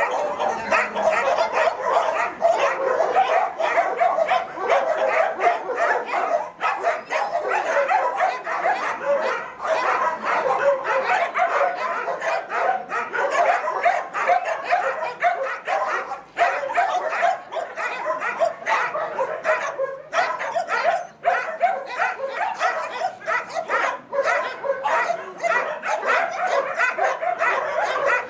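A pack of dogs barking and yipping at once, a dense, unbroken chorus of overlapping calls with some whining mixed in.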